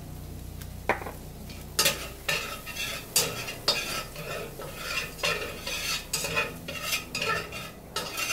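Metal slotted spatula scraping and stirring in a stainless steel skillet, about two strokes a second starting about a second in, with sizzling in the pan: flour being worked into the hot mixture to thicken a sauce.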